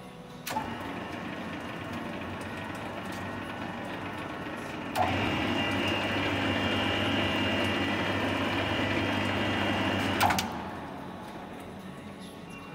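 OETIKER Rotol trowalizing (barrel finishing) machine switched on with a click and running with a steady mechanical hum. About five seconds in, another click and it runs louder, with a higher whine added. Near ten seconds a click, and it runs down, fading.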